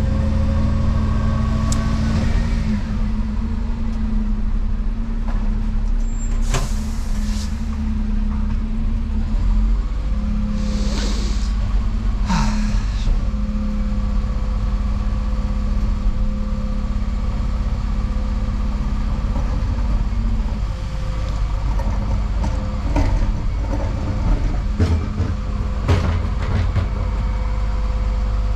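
Dennis Eagle Elite 6 refuse truck's diesel engine running steadily with the PTO engaged, driving the rear compactor that scrapes and rams the waste to the front, heard from inside the cab. Short sharp hisses of air come about 6, 11 and 12 seconds in, and the steady hum drops away about 20 seconds in.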